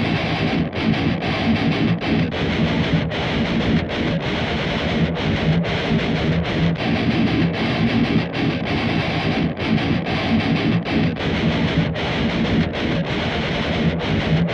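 High-gain distorted electric guitar playing a metal riff through a Mooer 005 Brown Sound micro preamp pedal, a model of the EVH 5150 III amp, with short regular breaks in the riff.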